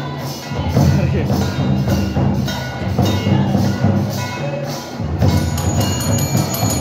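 Tribal folk dance music: drums beating a steady rhythm of about three strokes a second over a low, sustained melodic line.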